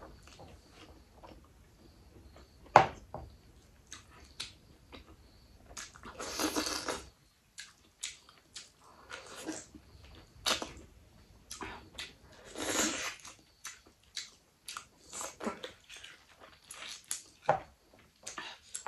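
A person chewing mouthfuls of rice and mutton gravy eaten by hand: wet smacks and small mouth clicks throughout, with a sharp click about three seconds in and two longer crunchy bites, around a third of the way and two thirds of the way through.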